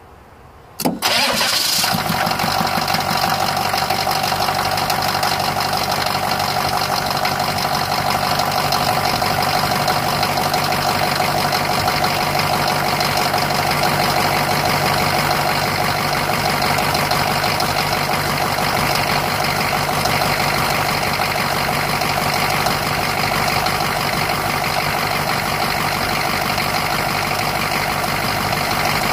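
1984 GMC's 6.2-liter V8 diesel engine starting about a second in: a brief crank, it catches almost at once, then it idles steadily.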